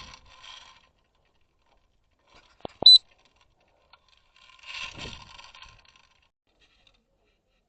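Two quick sharp clicks with a short metallic ring, close together about three seconds in, then a brief rustling scrape a couple of seconds later.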